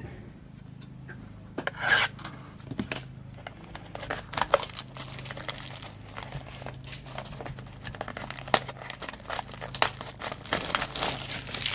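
Trading card packaging being torn open and handled: irregular tearing and crinkling of a sealed mini box and its foil card pack.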